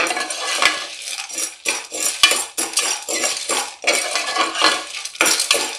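Metal spoon stirring dry, still unpopped popcorn kernels in oil in a pressure cooker pot: the spoon scrapes and clinks against the metal pan while the hard kernels rattle, in quick irregular strokes.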